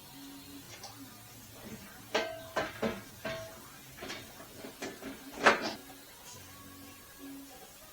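Irregular clunks and knocks from hands-on work on a band saw, several in quick succession around two to three seconds in and the loudest about five and a half seconds in.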